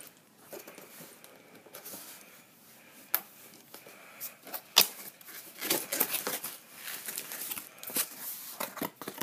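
Cardboard product box being handled and opened by hand: rustling and scraping of cardboard broken by sharp snaps and clicks, the loudest about five seconds in.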